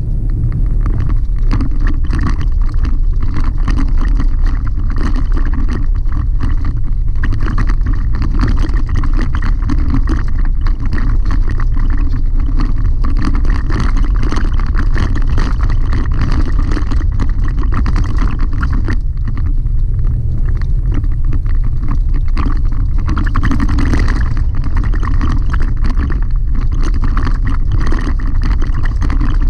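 Cabin noise of a Chevrolet Colorado ZR2 pickup driving on a gravel dirt road: a steady low rumble of tyres and engine with constant rattling and clicking from the rough surface.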